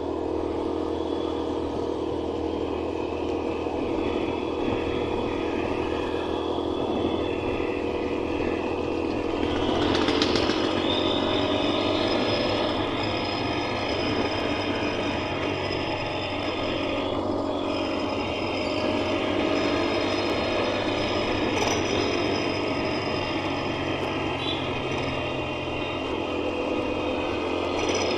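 TVS Apache motorcycle's single-cylinder engine running under way, its pitch shifting and getting louder about ten seconds in as it revs up.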